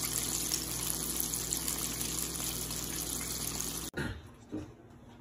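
Chicken pieces frying in a skillet of hot oil: a dense, steady sizzle with a low hum beneath. It cuts off abruptly about four seconds in.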